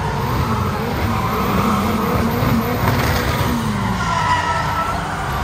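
Several stunt cars drifting on a show track: engines revving up and down with tyres squealing as they slide.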